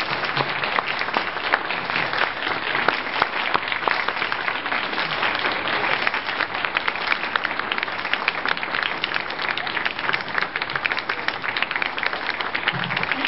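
A room full of people applauding, many hands clapping steadily without a break.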